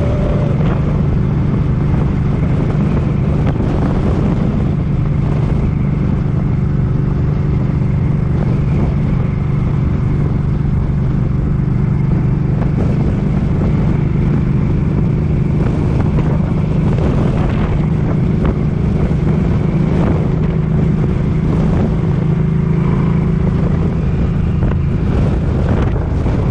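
Suzuki Boulevard M50's 805 cc V-twin engine running steadily at cruising speed, with wind noise rushing over the microphone.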